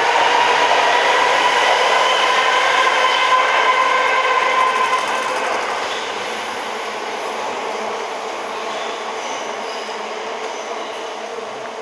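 Osaka Metro Midosuji Line subway train pulling out of the platform. Its motors whine with a slowly rising pitch for about five seconds, then the sound fades as it goes.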